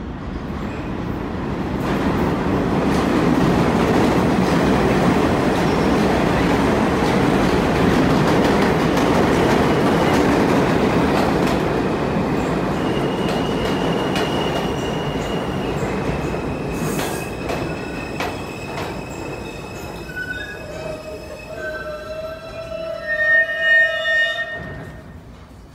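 An R160-series New York City subway train pulling into the station: a loud rumble of wheels on rail builds and then eases as it slows. From the middle on, high whines and squeals rise over it, strongest near the end as it brakes to a stop.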